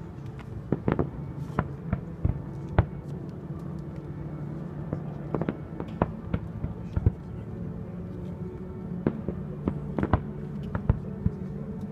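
Distant fireworks display: aerial shells bursting in sharp, irregular bangs, sometimes several close together, over a steady low hum.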